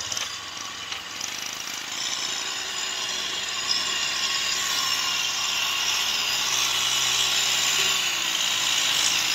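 Kubota M6040SU tractor's diesel engine running under load as it hauls a trailer of rice sacks through mud, growing steadily louder as it comes close.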